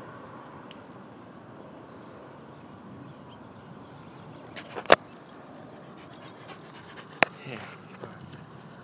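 A dog panting up close near the end, with two sharp knocks about two seconds apart standing out above steady outdoor background noise.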